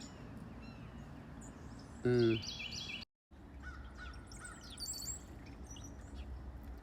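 Wild birds calling and chirping over steady outdoor background noise. There is one loud, short harsh call about two seconds in, and after it a run of quick repeated chirps. The sound cuts out briefly just after three seconds.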